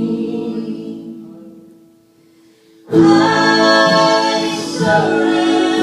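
Vocal trio singing a hymn in close harmony: a held chord fades away into a short pause, and the voices come back in together, loudly, about three seconds in.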